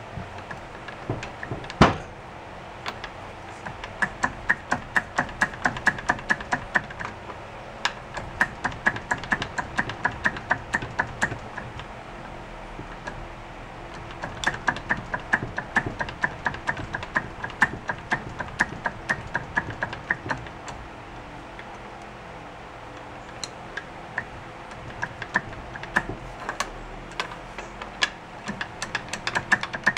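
Socket ratchet clicking rapidly in runs as it is swung back and forth on the alternator-rotor bolt of a seized motorcycle engine, trying to rock it free. There is a single louder knock about two seconds in.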